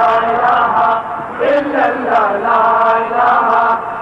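A male voice chanting in long, held melodic phrases, with short breaks between them.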